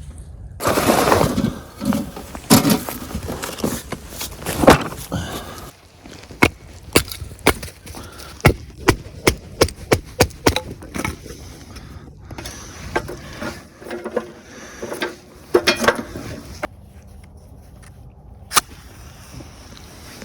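Dry wood being broken up for the stove fire: a stretch of rough crackling and splintering about a second in, then a run of sharp cracks and knocks, about two a second, with scattered ones later.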